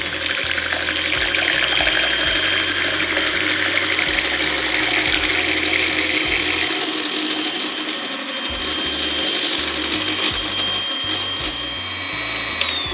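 Electric hand mixer (Philips) running steadily, its beaters whirring through a runny mixture of water, red gouache paint and guar gum, with a steady high motor whine.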